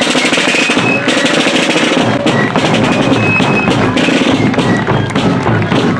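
A fife and drum corps playing a march on rope-tension drums: rapid, dense snare drumming with bass drum beats and a few short, high fife notes over the top.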